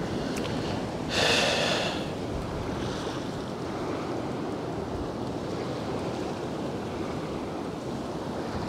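Steady wind buffeting the microphone, with small wind-driven waves lapping at the shore. About a second in comes one brief rasping sound lasting under a second.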